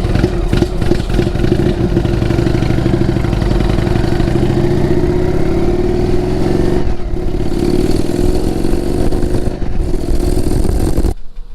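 Indian Thunder Stroke 111 V-twin of a 2016 Indian Springfield, with Thunder Works slash-cut exhaust, Arrow 111 intake and Stage 2 cams, accelerating on the road: the engine note climbs, drops briefly twice, about seven and nine and a half seconds in, as it shifts up, and climbs again. It cuts off suddenly near the end.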